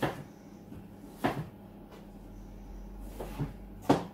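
Kitchen knife chopping potatoes on a chopping board: a few short, sharp knocks of the blade striking the board at an uneven pace, some in quick pairs, the loudest near the end.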